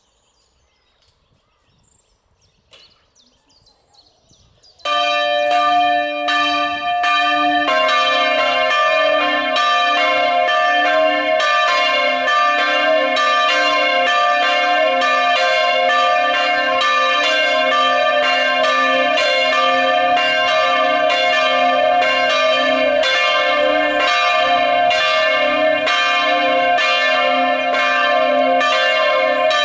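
The chapel's bells ring out in full peal from the freestanding wooden bell tower, starting suddenly about five seconds in. One bell sounds first, and a second, lower-pitched bell joins about three seconds later. The two then strike alternately in a steady rhythm.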